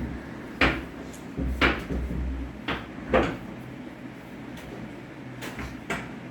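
A series of sharp knocks and dull thuds from a chiropractic adjustment: four within the first three and a half seconds and one more near the end.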